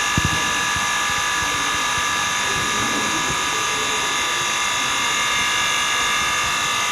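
All-in-one mini laminating machine running, its built-in vacuum pump and air compressor giving a steady whine of several even high tones, with a few low knocks just after the start.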